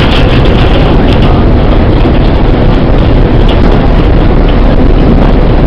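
Loud, steady low rumble and rushing noise on the deck of a car ferry under way.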